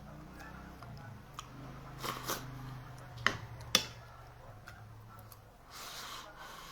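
A person eating close to the microphone: a few sharp clicks and smacks, the loudest a pair about three and a half seconds in, over a faint steady hum.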